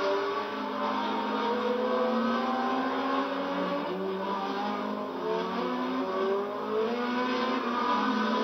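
1973 Formula One cars racing past, several engines heard at once, their notes rising and falling as they pass.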